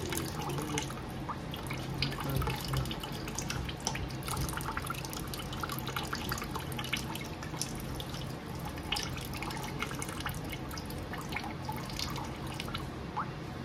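Coconut water trickling out of a cracked coconut in a thin stream, dripping and splashing irregularly into a stainless steel sink and a plastic tub.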